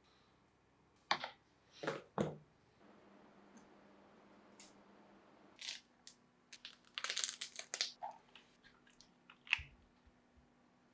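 Mechanical keyboard parts and packaging being handled: scattered sharp clicks and short rustles, with a quick run of clicks in the middle.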